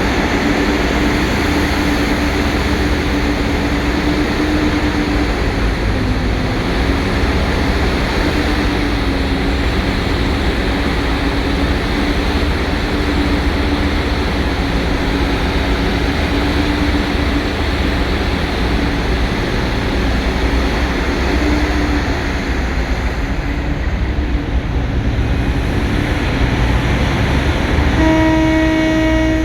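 Heavy mining machine running steadily, a low rumble with a wavering whine over it. Near the end a horn sounds once for about a second and a half.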